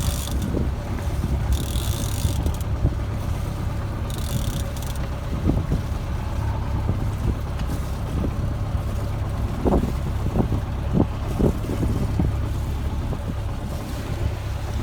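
Steady low rumble aboard a sailboat under way, with a few dull knocks about ten seconds in.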